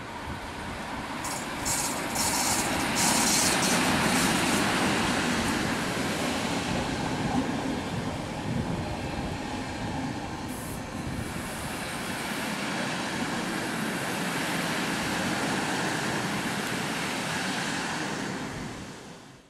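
EP07 electric locomotive passing at speed with a train of passenger coaches, wheels running on the rails. The noise rises to its loudest as the locomotive goes by about three seconds in, then holds steady as the coaches pass, and cuts off suddenly at the end.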